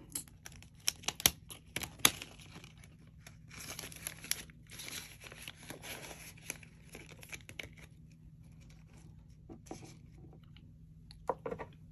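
Paper banknotes and a clear plastic cash envelope rustling and crinkling as the bills are handled and stuffed into the envelope. Sharp clicks and crackles come in the first two seconds and again near the end, with softer rustling between.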